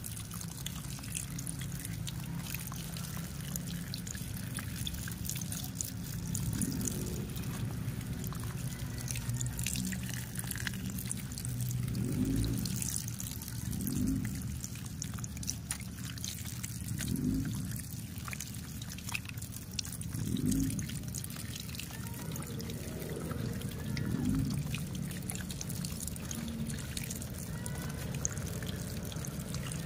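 A thin stream of water pouring and splashing onto a plastic toy tractor and trailer held in the hand, trickling and dripping off into water below. The splash swells every few seconds as the toy is turned under the stream.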